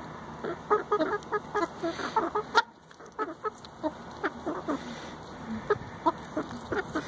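Several hens clucking softly in many short, quick notes while dust bathing together. About two and a half seconds in there is one sharp click, the loudest sound, followed by a brief drop in level.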